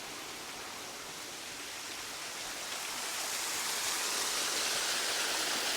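Waterfall rushing with a steady, even hiss of falling water that grows a little louder and brighter about halfway through.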